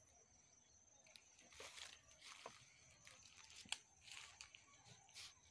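Near silence with faint rustling and a few soft clicks and crackles as a small hooked fish is landed and handled on a dry grassy bank.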